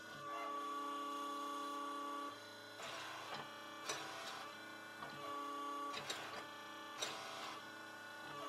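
Power hammer working a hot steel hammer head held in tongs: a series of short, unevenly spaced blows over a steady machine hum.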